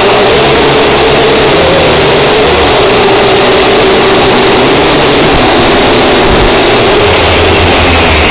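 A cheap drone's electric motors and propellers whining loudly and steadily, picked up by the drone's own camera, the pitch wavering slightly as it flies.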